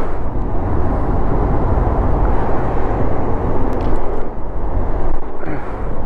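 Honda XRM 125 motorcycle's single-cylinder four-stroke engine running steadily, a low rumble.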